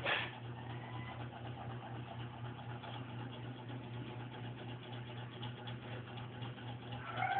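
A steady low hum under a hiss of background noise, with a brief noisy burst at the very start and a short pitched sound near the end.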